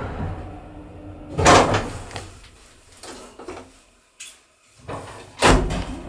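ZREMB traction elevator stopping at a floor and setting off again: its motor hum dies away, a loud clunk comes about a second and a half in, then a near-silent pause. Another loud clunk comes near the end, and the motor hum starts again as the car heads down.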